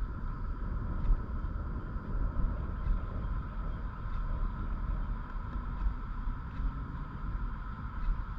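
Wind buffeting the microphone in an uneven low rumble over a steady high hum, with a few faint ticks.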